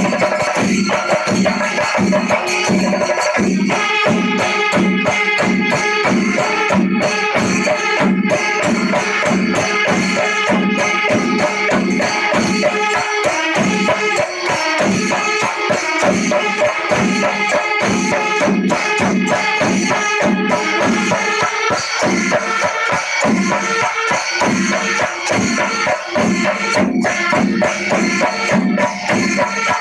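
Pandimelam ensemble of Kerala temple percussion: massed chenda drums beating a steady pulse of about two strokes a second, ilathalam cymbals clashing over them, and kurumkuzhal pipes and kombu horns playing sustained tones through most of it.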